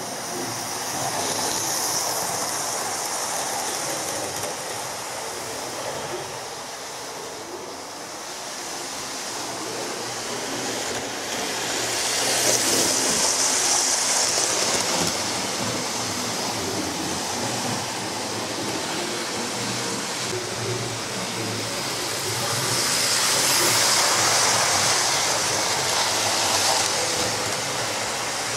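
Analogue model railway trains running on the track, a steady mechanical rushing noise of motors and wheels that swells twice as a train passes close, about twelve seconds in and again about twenty-three seconds in. The passing train is likely the model HST in InterCity swallow livery.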